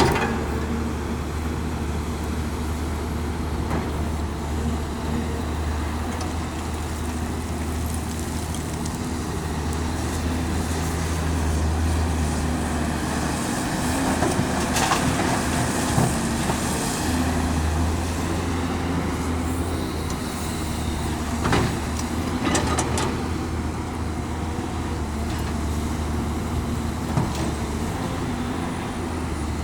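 Caterpillar 329D L excavator's diesel engine running steadily under working load, the pitch easing briefly twice. A few sharp knocks come through over it about halfway through.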